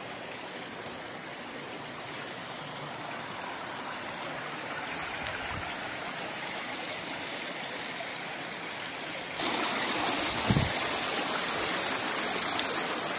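Shallow river running over rocks, a steady rushing that grows suddenly louder about nine seconds in.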